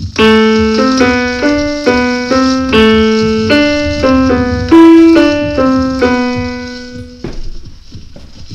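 A short two-voice tune on a keyboard: a melody over a lower line, the notes changing about twice a second. It stops about seven seconds in.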